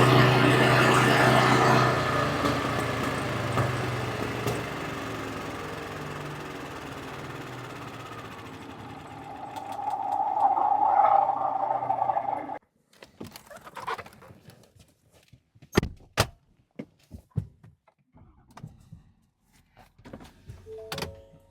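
An engine running, loud at first, then fading away over several seconds before swelling again; it cuts off abruptly about two-thirds of the way in, leaving only scattered short knocks and clicks.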